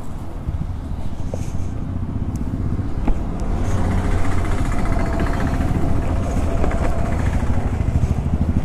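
A motor vehicle engine running close by: a steady low rumble with a fast even pulse that grows a little louder over the first few seconds, with a few light clicks over it.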